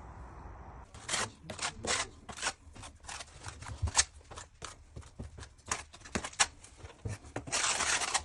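A quick, irregular series of short scraping or rasping strokes, a few a second, starting about a second in, with a longer stroke near the end.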